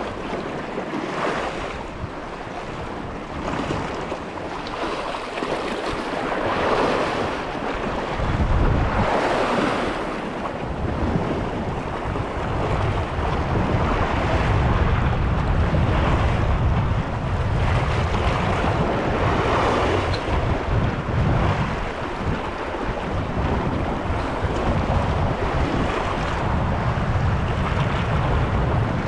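Wind buffeting the microphone over the wash of choppy sea waves, with swells of splashing now and then; the low wind rumble grows heavier about eight seconds in.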